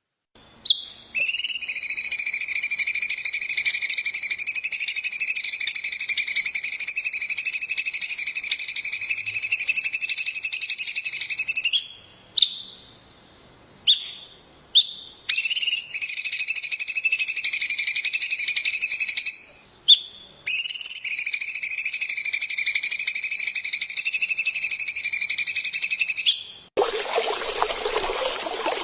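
A songbird's high, rapid trill, held unbroken for many seconds at a time and breaking off abruptly a few times. Near the end it gives way to water trickling.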